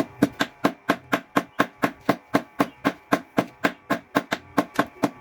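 Mechanical blacksmith's power hammer running, its ram striking in a fast, even rhythm of about four blows a second, with a faint steady ring between the blows.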